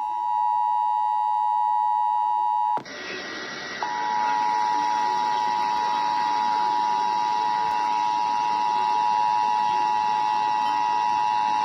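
Emergency Alert System two-tone attention signal (853 Hz and 960 Hz sounded together) on a broadcast, a steady held dual tone that marks the start of the monthly test. It breaks off about three seconds in, a second of hiss follows, then the same dual tone starts again over a hissier broadcast and holds.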